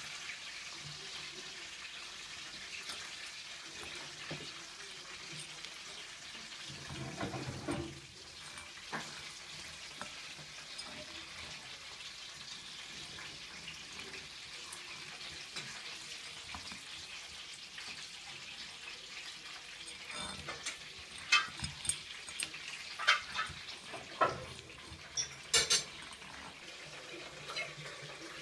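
Live crayfish handled in a ceramic bowl and on a plate: their hard shells, claws and legs scrape and tap on the china, under a steady hiss. A string of sharp clicks and knocks comes about three-quarters of the way in as they are set down on the plate.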